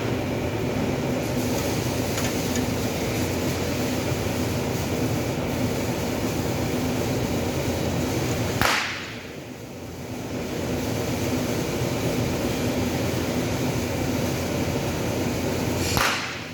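Two sharp cracks of a stud welder firing studs onto a sheet-metal panel door, one about halfway through and one near the end, over a steady mechanical hum.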